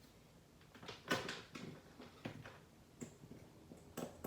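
A few separate clicks and knocks of handling as test leads and a resistance decade box are set up for a resistance test, the loudest about a second in and a couple more near the end.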